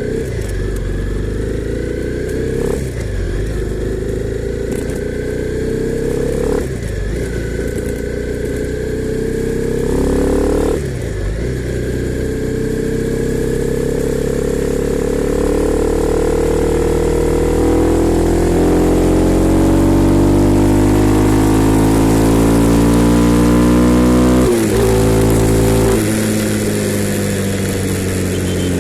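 Honda CB300R's single-cylinder engine pulling hard while riding, shifting up near 3, 7 and 11 seconds in, each shift a sudden drop in pitch. It then climbs in one long steady pull to about 24 seconds before the revs fall away as the throttle closes or the next gear goes in.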